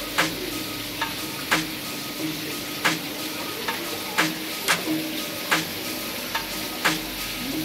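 Steady sizzling hiss with sharp clicks every half second to second, over faint soft background music.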